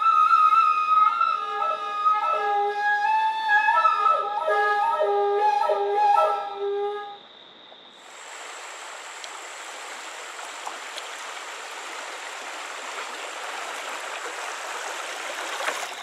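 A Native American flute plays a melody of held notes. It stops about seven seconds in, and from there the steady rush of river water over a shallow riffle is heard.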